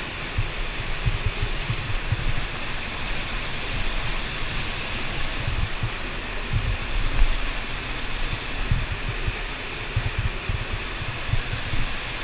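Underground cave river rushing, a steady loud hiss of moving water, with irregular low rumbling underneath.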